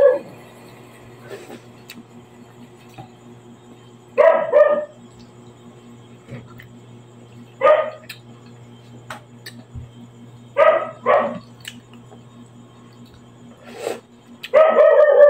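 A dog barking in short groups of one to three barks, four times over, with a longer run near the end, over a steady low hum.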